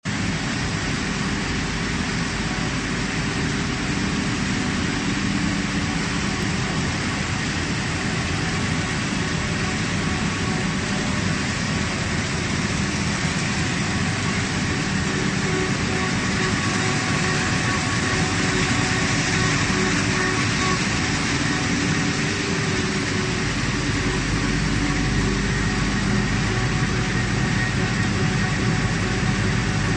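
Central-impression flexographic printing press running: a steady mechanical hum and whir with a few faint steady tones. A deeper low hum joins in near the end.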